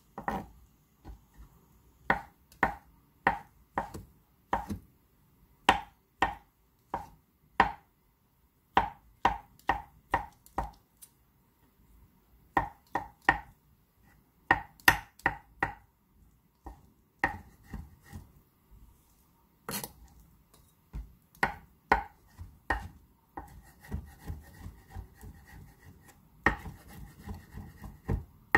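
Kitchen knife chopping boiled egg whites on a wooden cutting board: separate sharp strikes in short runs with pauses between, turning into quicker, closer, lighter chopping over the last few seconds as the whites are minced.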